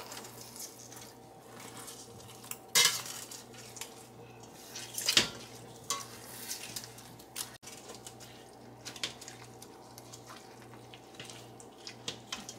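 Metal potato masher crushing fresh strawberries in a stainless steel pot: soft crushing of the fruit with taps and clanks of the masher against the pot. Two of the clanks are louder, about three and five seconds in.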